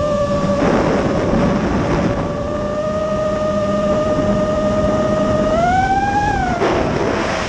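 The brushless motors of a Nazgul Evoque F5 freestyle FPV quadcopter whine at a steady pitch, heard from the onboard camera. Near the end the whine rises for about a second as the motors speed up, then drops away with a rush of wind noise.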